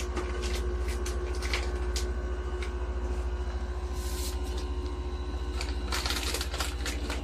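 Gaabor 4.5 L air fryer running: a steady motor and fan hum with a fast flutter in the low end, and a few scattered light clicks.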